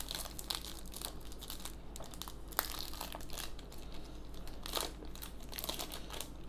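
Foil Yu-Gi-Oh! Maximum Crisis booster pack wrapper crinkling and tearing as it is torn open by hand, an irregular crackle throughout.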